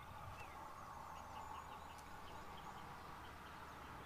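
Faint outdoor ambience with distant small birds chirping: a few short high calls, then a run of quick chirps, about four a second, through the middle.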